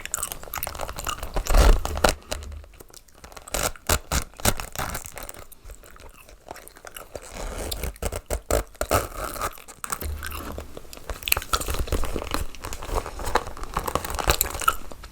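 Close-miked tapping and scratching on a bag, with irregular clicks and scratchy strokes. A heavier knock comes about a second and a half in.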